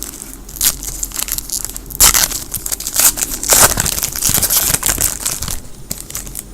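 Foil trading-card pack wrapper crinkling and tearing as it is opened and crumpled in the hands, loudest and densest in the middle few seconds.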